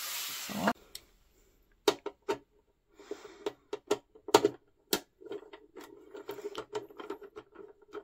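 Irregular sharp clicks and taps of hard plastic as a small screwdriver is fitted into the screw of a toy playset's plastic battery-compartment cover, after a short rustle that cuts off under a second in.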